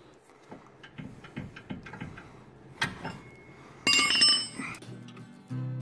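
Light metal clicks and taps from work on a car's front suspension, then about four seconds in a sharp metal-on-metal clink that rings briefly. Background music starts near the end.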